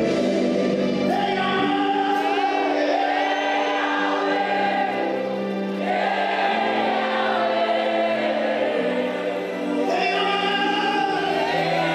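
Gospel choir singing, several voices together in long held notes over a sustained low accompaniment.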